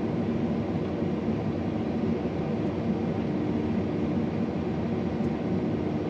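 John Deere combine harvester running steadily while cutting wheat: an even machine drone with a faint steady hum, unchanging throughout.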